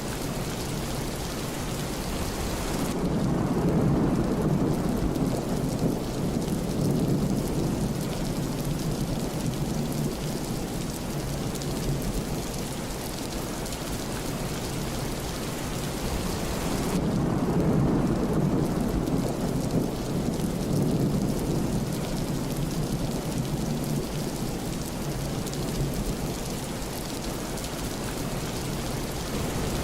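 Steady rain falling, with thunder rolling twice: a long low rumble about three seconds in and another at about seventeen seconds, each lasting several seconds, and a third starting right at the end.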